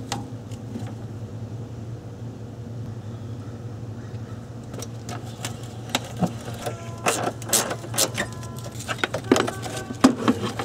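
Irregular clicks and metallic clinks of a ratchet and socket working the car battery's hold-down and terminal fasteners, some clinks ringing briefly, over a steady low hum. The clinks crowd into the second half.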